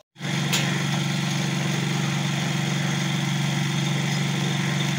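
A machine motor running steadily with a low hum and a hiss. It starts abruptly just after the beginning.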